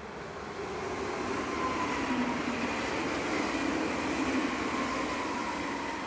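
NS double-deck electric passenger train passing by on its rails, a rushing rumble that swells to its loudest about halfway through and then fades as it moves away, with a faint steady whine over it.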